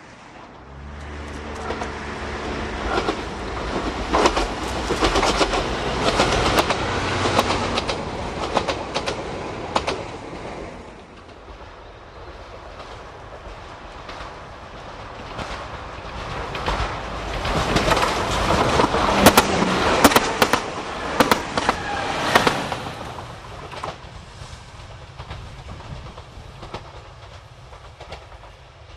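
JNR KiHa 181 series diesel express railcars passing, twice. The diesel engines run with a steady low drone and the wheels clack over rail joints. The first pass fades out by about ten seconds in; the second, with the sharpest clacks, is loudest around twenty seconds in and then fades.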